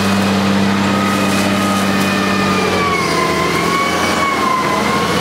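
Valtra road-rail tractor with a mulcher, its engine running steadily under load. A high, slightly wavering whine joins in about a second in and holds to the end.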